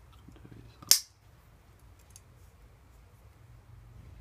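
A Swiss Army knife blade snapping on its backspring: one loud, sharp metallic click about a second in, with a few faint ticks of handling after it.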